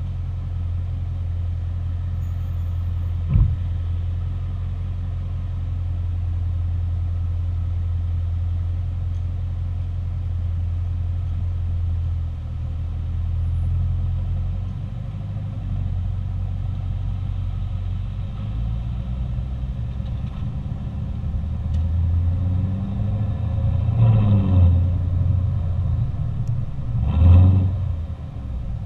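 2021 Camaro SS 1LE's 6.2-litre V8 idling steadily through its NPP performance exhaust, with one sharp click about three seconds in. Toward the end the engine is revved, with two short, loud throttle blips.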